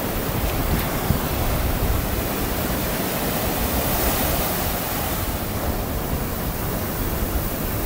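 Sea surf: waves breaking and washing in a steady rushing noise that swells brighter around the middle, with wind rumbling on the microphone.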